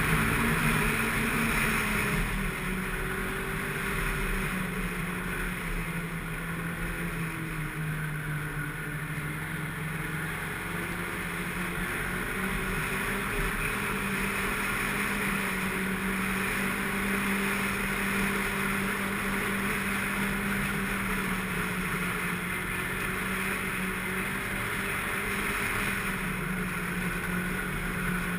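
Snowmobile engine running steadily under way. Its pitch eases down a few seconds in and climbs back up before the halfway point.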